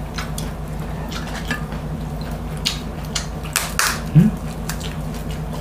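Close-miked mukbang eating sounds: chewing with scattered wet mouth clicks and smacks, and a short hum about four seconds in, over a steady low background hum.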